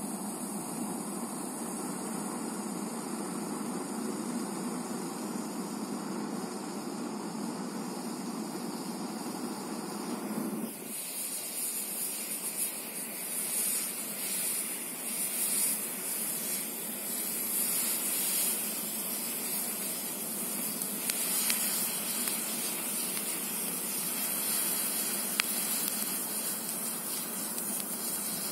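Pyrotechnic white-smoke charge burning with a steady rushing noise. About ten seconds in, the sound abruptly turns into a higher, fluctuating hiss as the charge reaches full smoke output.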